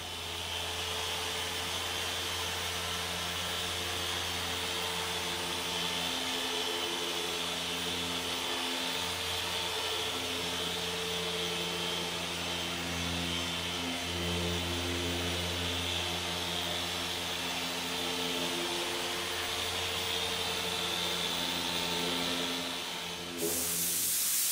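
Dual-action polisher with a yellow Rupes pad running steadily on the car's hood: the refining stage of a paint correction, with Sonax Perfect Finish polish. A loud burst of hiss lasting about two seconds comes near the end.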